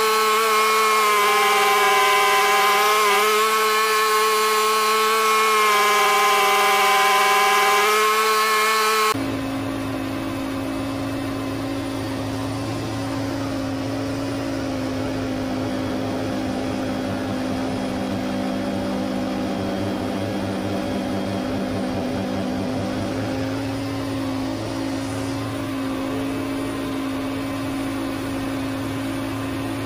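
John Deere X570 lawn tractor's engine running with its front-mounted snowblower working, played at double speed so the pitch is raised. A high, steady whine changes abruptly about nine seconds in to a lower, rougher steady drone.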